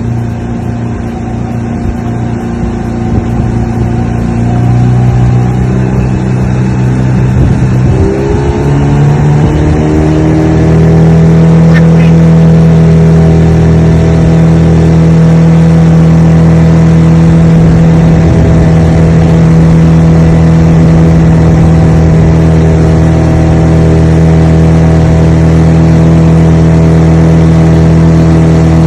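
Outboard motor of a boat carrying three people, running under way. It speeds up about a third of the way in, then holds a steady high-revving drone.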